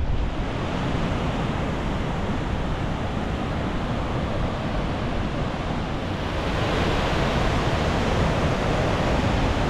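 Steady rush of fast-flowing water from a rain-swollen Highland stream, growing louder about six and a half seconds in, with some wind on the microphone.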